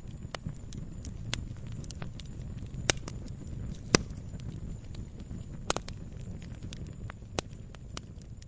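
Firewood burning: a low steady rumble of flame with sharp crackles and pops from the logs at irregular intervals, the loudest about four seconds in.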